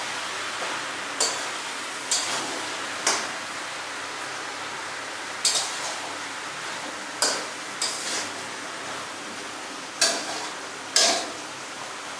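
A metal spatula knocking and scraping against a steel karahi as vegetables are stirred and fried with spices: about nine sharp, irregular clinks over a steady hiss.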